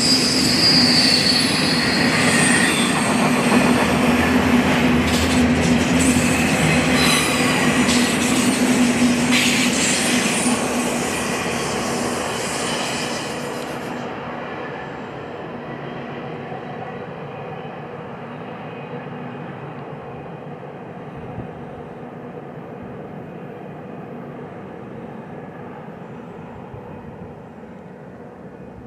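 Freight train cars rolling past on the BNSF main line, with wheels squealing against the rail. The bright squeal and high noise stop abruptly about halfway through, and the rumble then fades steadily as the train draws away.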